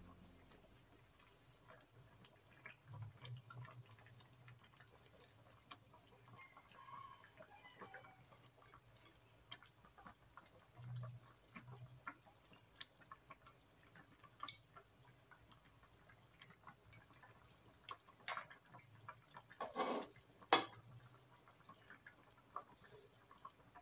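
Fish in yellow spice sauce simmering faintly in an aluminium wok, with scattered small ticks and, near the end, a few louder sharp knocks of a metal spatula against the pan.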